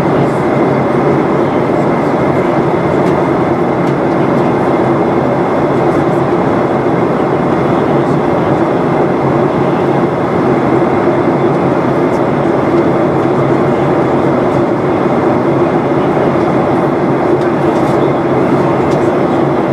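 Steady cabin noise inside a Boeing 737-800 in flight: the constant rumble of its CFM56 jet engines and the rush of air over the fuselage, with a faint steady whine above it.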